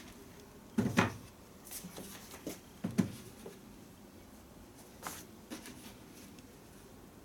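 A few short knocks and clunks of leather shoes being handled and set down on a wooden bench top, the loudest about a second in and again about three seconds in.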